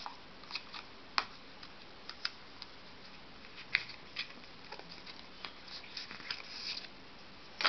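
Cardboard packaging insert and paper manual folder being handled and pulled out of a phone box: scattered light clicks and taps with some paper rustling. The sharpest taps come about a second in, near four seconds, and at the very end.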